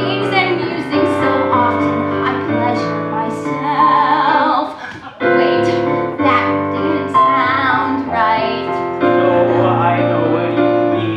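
A woman singing a musical-theatre ballad with live piano accompaniment, holding long notes with vibrato over sustained piano chords. The voice and piano break off briefly about five seconds in, then carry on.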